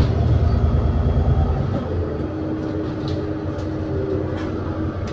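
ADL Enviro400 City double-decker bus with Voith gearbox, heard from on board. The engine pulls loudly with a deep throb, then eases off about a second and a half in, leaving a quieter steady drone with a faint whine.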